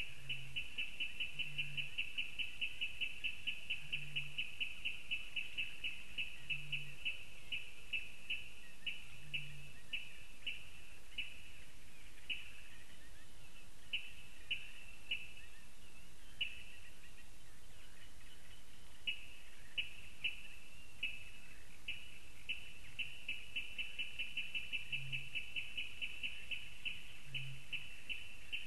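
A Eurasian bittern booming low and short, several times a couple of seconds apart in the first ten seconds and twice near the end. Over it, a louder unseen reedbed animal calls in long runs of short high notes, about eight a second, with pauses.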